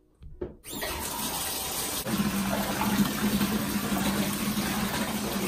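Bathtub tap running into a filling tub: a steady rush of water that starts within the first second, with a low steady hum joining about two seconds in.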